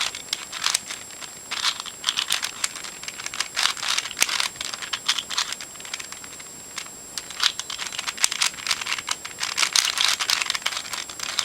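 Eastsheen 4x4 plastic puzzle cube being turned quickly by hand, its layers clicking and clacking in irregular bursts as its edges are paired up.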